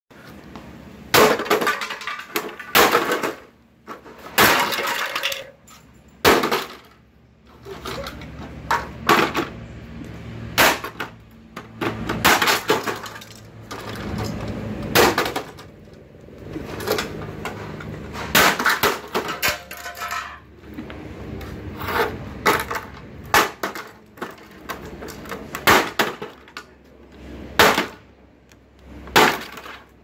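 Keurig coffee maker being smashed with a sledgehammer: many hard blows at uneven intervals, with the plastic housing cracking and breaking apart.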